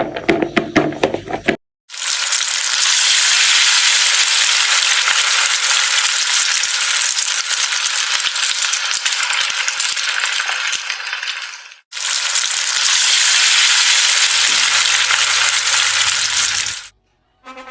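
French fries frying in hot oil: a loud, steady hissing sizzle. It starts about two seconds in after a brief rattle, breaks off for an instant near the middle, and stops shortly before the end.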